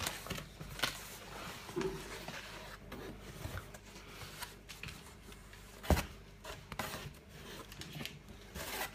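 Rustling and handling of a cardboard box and its shredded paper filler, with light scattered taps and one sharper knock about six seconds in.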